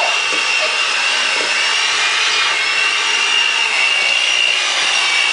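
Electric kitchen mixer running steadily at a constant speed, its motor whine holding one pitch while it beats cookie dough.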